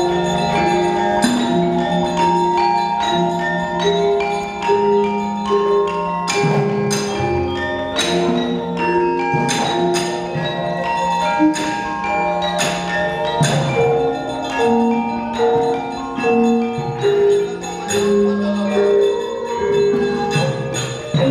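Javanese gamelan ensemble playing live: bronze metallophones and gongs ring out in interlocking melodic lines, with sharp struck hits every second or two.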